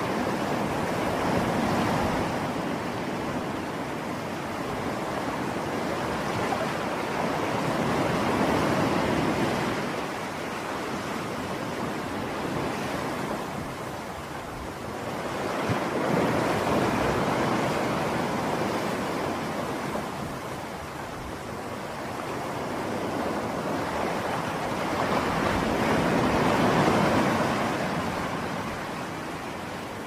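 Small sea waves breaking and washing up a sandy beach. The surf swells and fades about every eight seconds.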